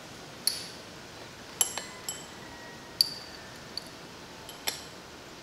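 Glass laboratory glassware, a pipette and test tubes, clinking about eight times while a solution is pipetted. The clinks are short and sharp, and several ring briefly.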